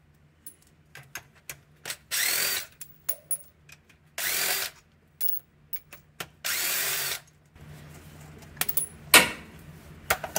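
Small cordless impact tool run in three short bursts, each under a second and about two seconds apart, spinning out engine-mount bolts. After that comes a low steady hum with a few metal clanks, one sharp knock about nine seconds in.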